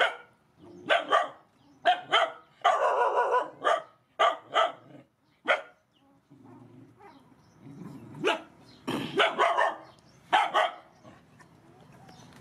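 A dog barking in short, sharp barks, several in quick succession, with a lull about six seconds in before more barks.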